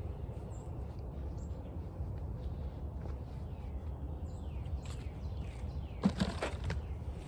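Outdoor ambience with a steady low rumble and faint bird chirps, broken about six seconds in by a short cluster of knocks and rustling.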